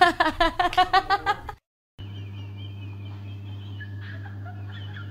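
A burst of rapid, high-pitched laughter that stops about a second and a half in. After a short gap comes a steady low hum with faint high warbling sounds over it.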